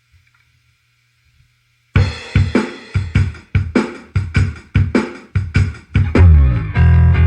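Electric bass played through a Traynor YBA300 all-tube bass amp with its Deep, Bright and Resonance switches engaged. After about two seconds of faint amp hum, it plays a run of sharp, evenly spaced percussive notes, two to three a second, then moves into sustained low notes near the end.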